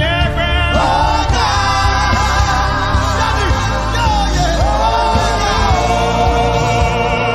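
Gospel worship music: voices singing long, wavering held notes over a steady band backing.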